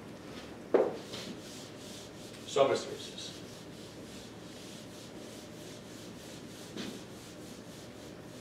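Rustling and rubbing handling noises, with a sharp short sound about a second in and a louder brief sound about two and a half seconds in.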